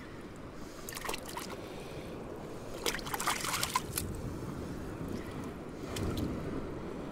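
Hands rinsing pieces of fish in a shallow rock pool: small splashes and trickles of seawater in short bursts, the busiest a little after three seconds in.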